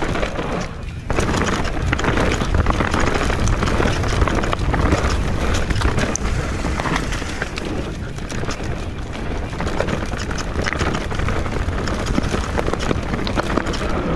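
Enduro mountain bike descending a dirt and rock trail: tyres rolling over the ground, the bike rattling with frequent sharp clicks and knocks, over a steady low rumble.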